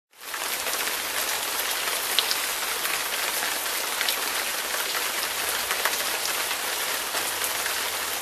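Steady rainfall, an even hiss with many small individual drop ticks through it, starting just after the beginning.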